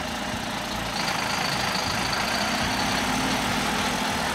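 Large articulated truck's diesel engine running as the truck crawls forward, growing louder about a second in, with a thin high whine over it for a couple of seconds.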